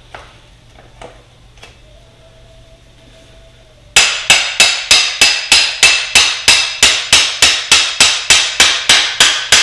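A hammer striking metal on a dirt bike in a fast, even run of ringing blows, about four a second, starting about four seconds in after a few light taps. It is being used to drive out a stuck part that is in there tight.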